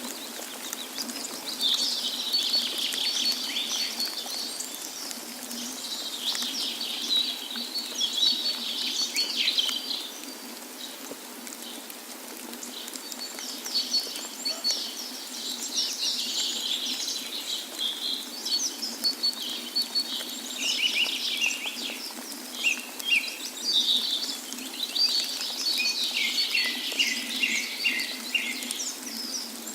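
A chorus of small songbirds chirping and trilling continuously, many calls overlapping, over a steady low rush of water.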